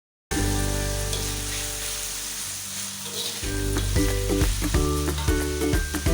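Food sizzling as it fries in a hot pan, under background music that picks up a regular beat about three seconds in.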